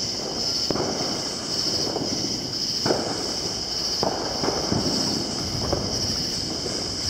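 Distant fireworks going off in the neighbourhood, a handful of sharp bangs and pops over a low rumble, with insects chirring steadily.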